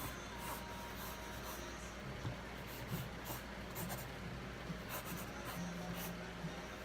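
A pen drawing on paper: short, irregular strokes scratching across the sheet.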